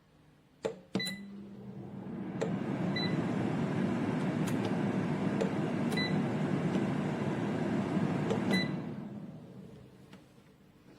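Air fryer's fan spinning up, running steadily, then winding down, with clicks about a second in and several short high beeps.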